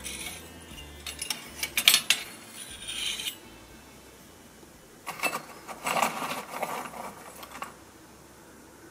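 A small metal coal shovel and lumps of fuel clinking and scraping against metal, in two bouts of clatter: one in the first three seconds and one from about five to seven and a half seconds in.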